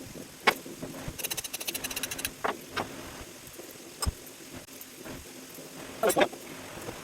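Metal knocks and clanks from scrap water pumps and electric motors being taken apart by hand, with a fast run of clicks about a second in, over a faint steady hum.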